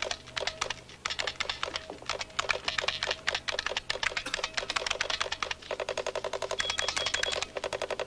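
Rapid typing: a quick, steady run of key clicks, several a second.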